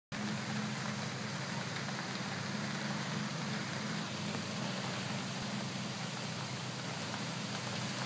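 A honey bee swarm humming, a steady low drone under a constant even hiss.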